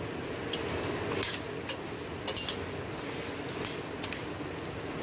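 Crayfish being stirred with a metal spoon in a steaming stainless-steel pan: irregular sharp clicks of spoon and shells against the pan over a steady hiss of the cooking.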